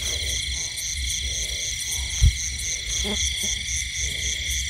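Night chorus of frogs croaking in a wet field after rain, over a steady high insect trill. A single dull thump sounds about two seconds in.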